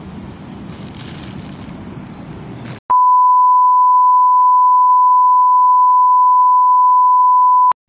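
A steady, high-pitched test-card reference tone: one pure beep that switches on abruptly about three seconds in, holds for about five seconds and cuts off just before the end. Before it there are a few seconds of outdoor background noise.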